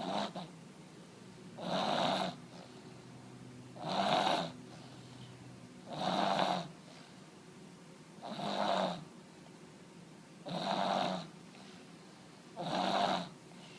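Snoring like an old man: one snore about every two seconds, six in all, each lasting under a second, with quiet between.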